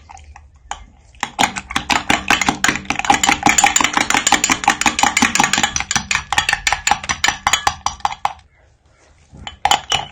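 A utensil beating egg whites in a bowl, clinking rapidly and evenly against the bowl's side. It starts about a second in, stops a little after eight seconds, and resumes briefly near the end.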